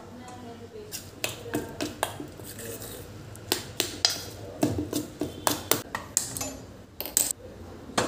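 Stainless-steel cookware and a spoon clinking: pans set down on a gas stove's burner grate and a spoon knocking and scraping against a steel bowl while mixing batter. About a dozen sharp, irregular clinks.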